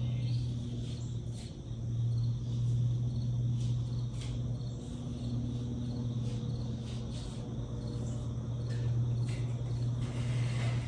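Crickets chirping in a steady repeating pattern over a loud, constant low hum, with a few faint clicks.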